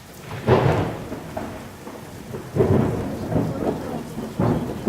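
Thunder: three heavy rumbles about two seconds apart, each starting suddenly and dying away, over a steady hiss like rain.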